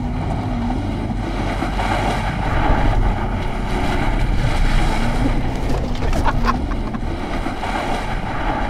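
Chevrolet Colorado ZR2 Bison pickup driven hard through mud in two-wheel drive with the diff locked, its engine running at high revs with the pitch rising and falling over wheelspin and churning mud and water. A few short knocks about six seconds in.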